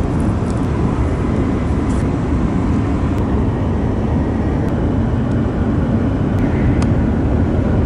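Steady running noise inside the cabin of a Joetsu Shinkansen E7 series train, a dense low rumble, with a few faint clicks.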